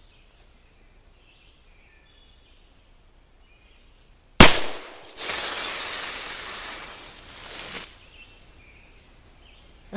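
One shot from a .31 Remington Pocket black-powder cap-and-ball revolver, about four and a half seconds in. Then nearly three seconds of steady hissing, fading near the end, as the hit 2-liter soda bottle sprays out its fizzing contents.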